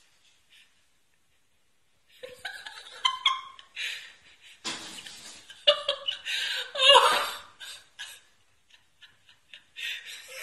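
A person laughing in bursts after about two seconds of near silence, the laughter growing loudest about seven seconds in.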